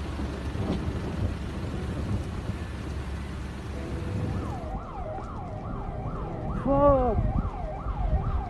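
A steady noisy hiss with low rumble, then from about halfway an emergency vehicle siren sweeping up and down about twice a second. A louder rising-and-falling tone sounds over it about seven seconds in.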